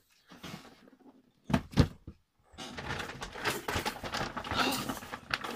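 Two quick thumps, then a long crinkly rustling as a white plastic bag is handled.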